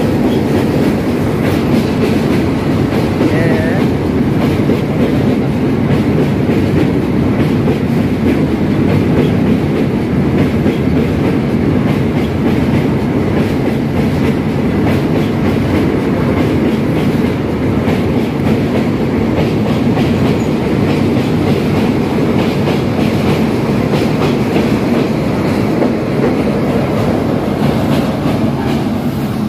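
A freight train of open-top wagons running past close by over a steel girder railway bridge: the steady noise of steel wheels on the rails, with a rapid, continuous clatter of wheels over the track.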